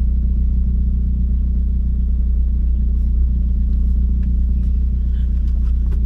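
Ford Focus ST's turbocharged 2.0 L EcoBoost four-cylinder running steadily, a deep even drone through its catless downpipe and full aftermarket exhaust. A few faint clicks near the end.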